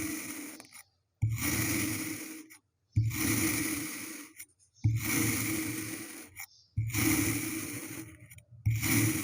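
Kinetic sand being dropped and squished, five times, each starting suddenly and fading over a second or so before an abrupt cut to the next, about every two seconds.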